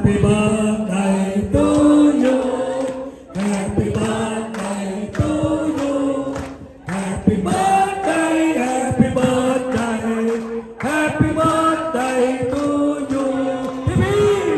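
A group of people singing a song together in unison, clapping in time.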